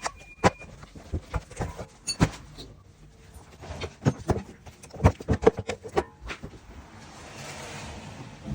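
Irregular knocks and clicks of hand tools and engine parts being handled during timing-chain repair work, thickest from about two to six seconds in, then a soft hiss near the end.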